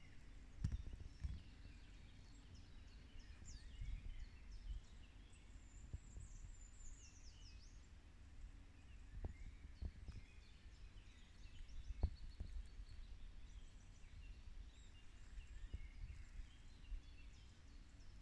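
Faint woodland birdsong: several small birds chirping and whistling, with a falling trill about six seconds in. Low rumble and occasional soft thumps underneath.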